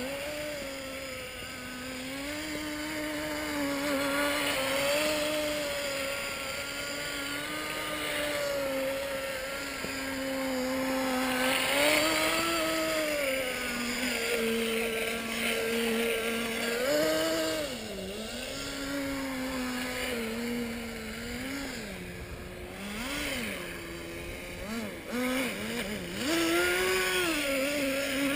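Small nitro glow engine of a Kyosho Nitro Blizzard RC snow vehicle running, its buzz rising and falling in pitch as the throttle is worked. It drops low and stutters a few seconds before the end, then picks up again.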